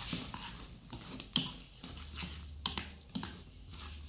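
Chopsticks stirring a wet mixture of minced pork, egg and tofu in a bowl: soft squelching with a few sharp clicks of the chopsticks against the bowl.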